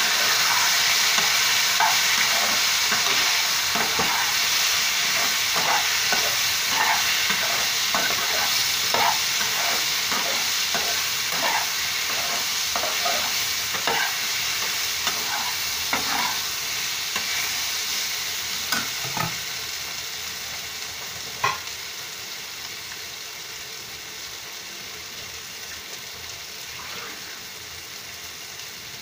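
Boiled green banana pieces sizzling in oil in a kadai, stirred with a steel spoon that scrapes and clicks against the pan. The sizzle slowly dies down and the stirring thins out toward the end.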